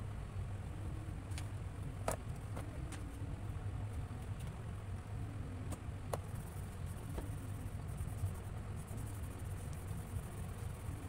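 A steady low hum throughout, with a few light clicks and taps as oil pastels and their box are handled on the table.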